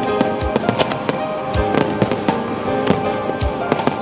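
Fireworks bursting: a dense run of sharp cracks and crackles with three deep booms, over background music with sustained tones.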